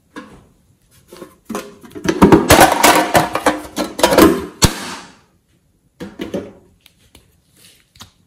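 Crinkling foil pouch being handled, a dense loud crackle for a few seconds, then a short rustle and a few light clicks near the end.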